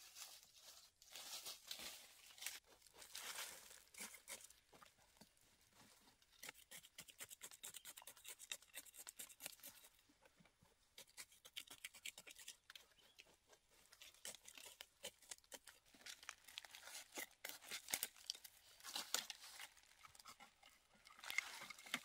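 Faint crunching and scratching of dry leaf litter and earth being dug and handled, many small scrapes in quick succession, busier near the end.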